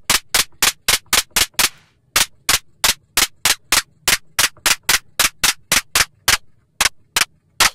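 FM-synthesised clap on a Roland MC-101 groovebox, fired rapidly about five times a second while the third knob sweeps the frequency of the modulating operators, shifting its tone. The hits ring briefly for the first two seconds and pause twice, about two seconds in and just past six seconds.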